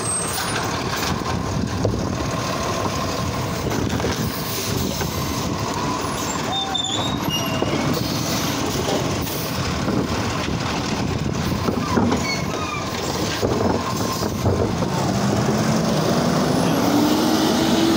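Automated side-loading garbage truck running beside the kerb: a steady diesel engine and machinery noise with scattered knocks. Over the last few seconds the engine's pitch rises steadily.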